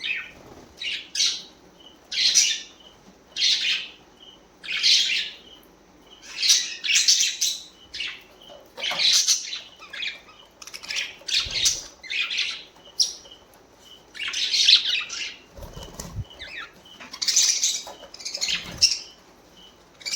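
Pet budgerigars giving short, harsh chattering calls in repeated bursts, about one a second.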